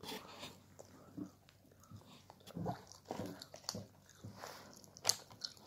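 A person chewing a Belgian chocolate seashell with the mouth partly open: irregular wet smacks and small clicks, with one sharper click near the end.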